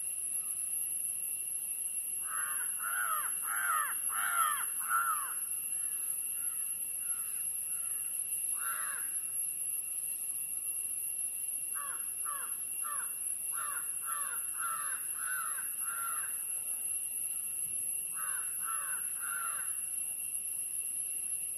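Crows cawing in runs of harsh calls: a quick string of about six, a lone caw, a longer string of about ten, and three more near the end, over a steady high-pitched hiss.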